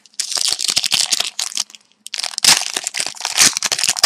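A hockey card pack's wrapper being torn open and crinkled by hand. The crinkling comes in two spells with a brief pause in between.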